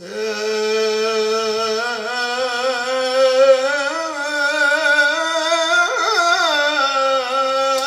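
Instrumental interlude in Arabic tarab music: a melody instrument plays a slow, unbroken line that glides between notes with vibrato, starting suddenly after a brief hush.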